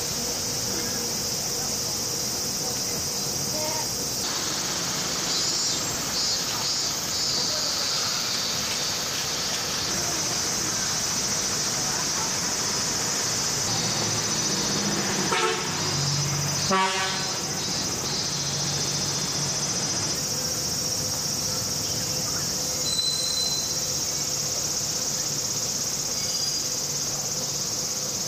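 Summer cicadas droning steadily in street trees over city street noise. A brief horn-like toot sounds about sixteen seconds in.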